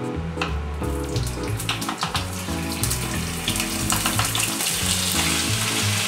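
Wet seafood mix tipped from a sieve into hot vegetable oil in a frying pan, sizzling with a rushing hiss that builds from about two seconds in and is loudest near the end. Background music with a bass line plays underneath.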